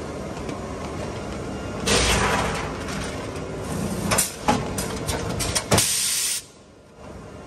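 Vertical bag-packaging machine cycling: a burst of air hiss from its pneumatic cylinders about two seconds in and again near six seconds, with a few sharp clacks between them as the sealing and cutting jaws work, over a steady running noise.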